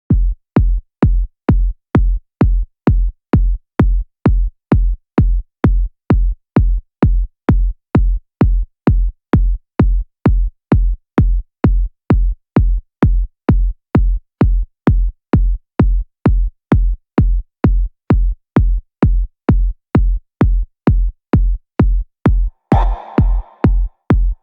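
Electronic dance music: a steady drum-machine kick drum at about two beats a second, with another layer of sound joining near the end.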